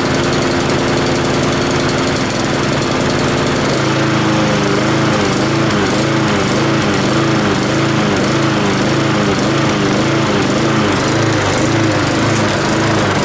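Honda lawn mower's single-cylinder engine running, holding a steady speed at first, then from about four seconds in hunting up and down rhythmically, a little over once a second: surging that the owner puts down to a fueling problem.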